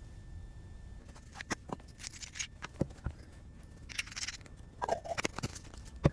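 An Olight Olantern camping lantern being handled and switched between light modes: scattered small clicks and two brief rustling scrapes, with a sharper click near the end.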